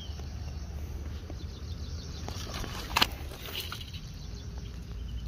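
Someone moving through dry scrub: quiet footsteps and rustling brush, with one sharp crack about three seconds in, over a low steady rumble.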